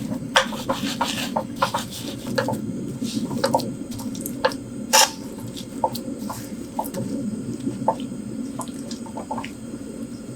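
Irregular drips and small plops of liquid with light clicks over a steady low rushing noise, one sharper click about five seconds in.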